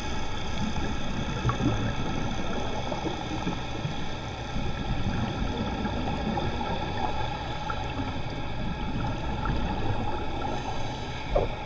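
Underwater ambience picked up by a GoPro HERO3 Black inside its waterproof housing: a steady muffled rumble and hiss with faint constant tones over it. A brief louder noise comes near the end.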